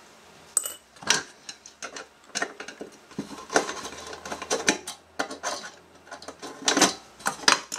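Screwdriver and small metal screws clicking and ticking irregularly as the screws holding a circuit board are undone.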